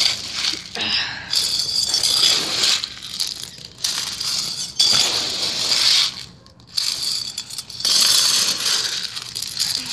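Handfuls of small landscaping gravel being scooped and poured by hand, crunching and clinking in irregular strokes, with a short pause about six seconds in.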